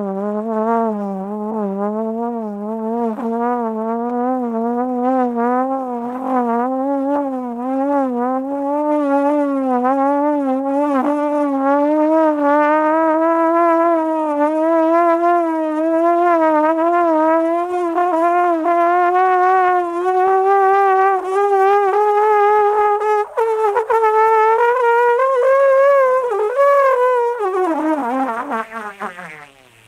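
Free-jazz trombone playing one continuous wavering line whose pitch trembles constantly and climbs slowly for over twenty seconds, then slides steeply down near the end.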